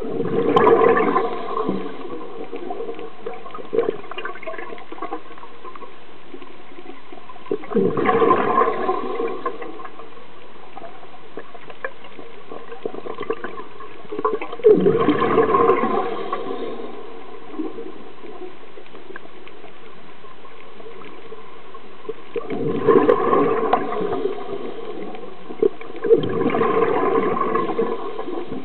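Scuba regulator exhaust: a diver's exhaled breath bubbling out in gurgling bursts of a second or two, five times, with steady underwater background noise between them.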